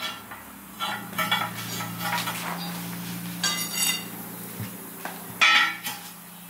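Steel truck-wheel split lock ring and rim clanking as they are handled and pried with a steel tyre lever: about six sharp metal clanks, each ringing briefly, the loudest about five and a half seconds in, over a steady low hum.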